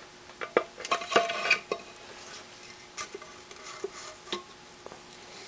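Light metallic clicks and knocks of an engine's front crankcase cover being slid onto its dowels and shift shaft. The clatter is busiest in the first two seconds, then thins to a few single ticks.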